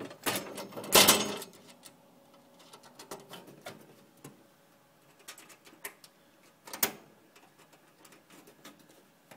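Handling noise: clicks, knocks and rubbing as the phone is moved close against a metal fire alarm panel cabinet, loudest about a second in and again with a sharp knock near seven seconds.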